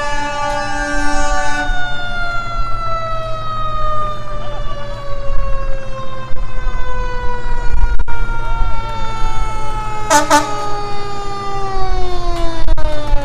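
Emergency vehicle siren winding slowly down in pitch, several tones falling together. A brief loud blast comes about ten seconds in.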